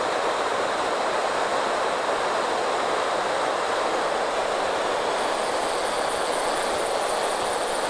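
Steady rushing of river water pouring over a low weir, an even, unbroken white-water sound.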